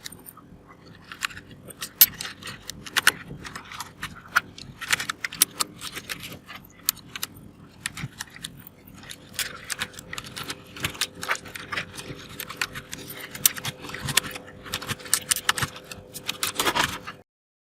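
Typing on an Akko 3108 mechanical keyboard with Akko Orange switches: quick, irregular clacking of keys, which stops shortly before the end.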